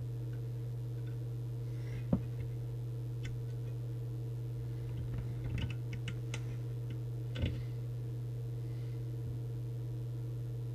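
Steady low electrical hum, with a few faint light clicks: one about two seconds in, a small cluster around the middle and one more a little later.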